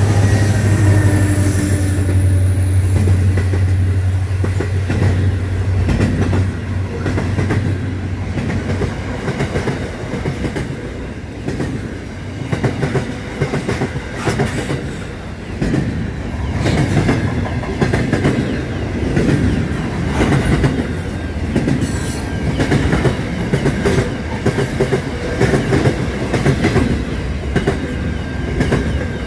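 Diesel-electric locomotives of an Aurizon freight train passing close, their engine drone strong for the first several seconds and then fading. Container wagons follow, rolling by with a steady clickety-clack of wheels over rail joints and a faint wheel squeal near the end.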